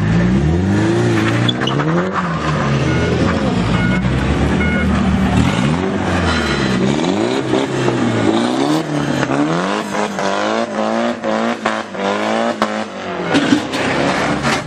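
Tuned car engines revving as the cars pull away one after another, the pitch rising and falling with each blip of the throttle. A run of sharp cracks comes in the second half, over the revving.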